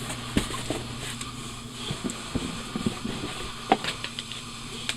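Packing paper rustling and a cardboard box being handled, with a few scattered taps and knocks.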